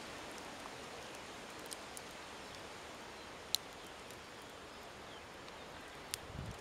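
Quiet outdoor hiss with a wood campfire crackling: a few sharp pops, the loudest about three and a half seconds in, and a soft knock near the end.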